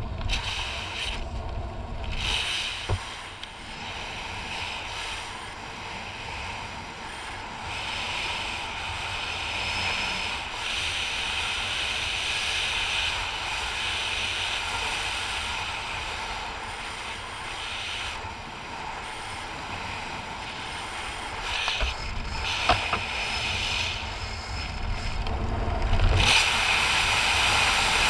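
Wind rushing over the camera microphone during a parachute canopy descent, a steady rustling hiss that surges and fades, with the canopy fabric and lines fluttering. It grows louder near the end.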